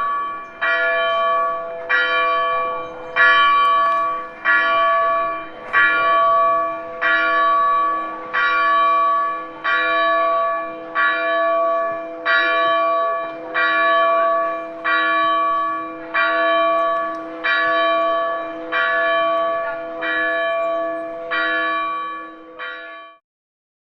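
A single church bell tolling, struck about once every 1.3 seconds, its low hum ringing on between strokes. The tolling cuts off suddenly near the end.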